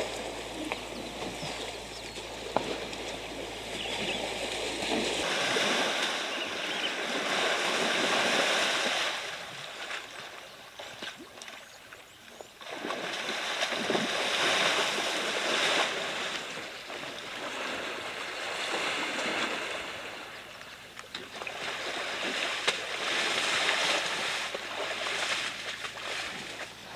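Muddy water splashing and sloshing as African elephant bulls wade and wallow in a waterhole, rising and falling in long swells.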